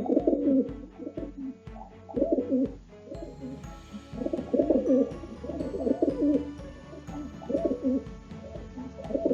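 Pigeon cooing: a run of low cooing phrases, repeated about every one to two seconds, over background music with a steady beat.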